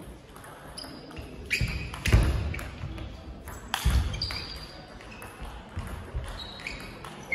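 Table tennis rally in a large hall: the celluloid ball clicking back and forth off the table and the rubbers, with short high squeaks of shoes on the hall floor. The loudest sounds are a few heavy thuds, about two and four seconds in, as the players move.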